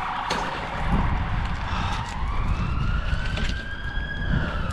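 An emergency vehicle siren: a fast warble at first, then a slow wail that rises for about two seconds and falls again near the end.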